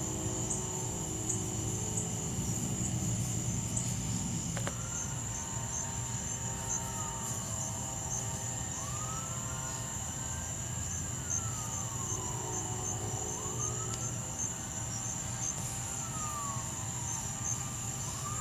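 A distant siren wailing, starting about five seconds in and rising and falling slowly, about every four to five seconds, over a steady high trilling of night insects.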